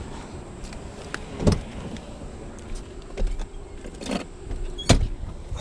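Knocks and clunks from handling things inside a car: three sharp knocks about one and a half, four and five seconds in, the last the loudest.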